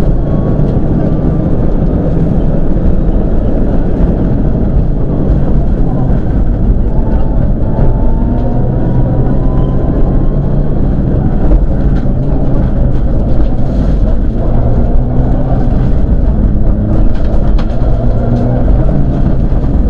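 Mitsubishi Lancer Evolution IX rally car's turbocharged four-cylinder engine running at speed through the gears, heard loud from inside the cabin with road noise, and a faint rising whine about eight seconds in.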